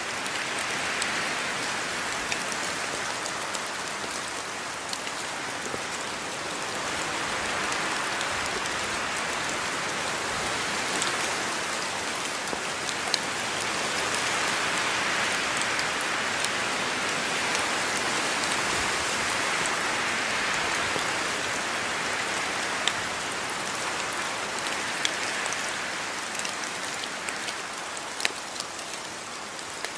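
Steady rain falling, a dense hiss dotted with sharper ticks of single drops; it slowly swells and eases.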